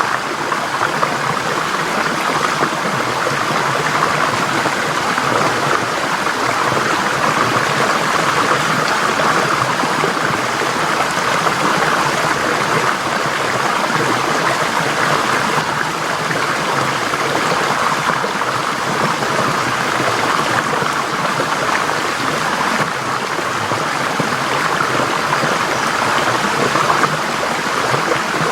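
Forest stream flowing over rocks: a steady, unbroken rush of water.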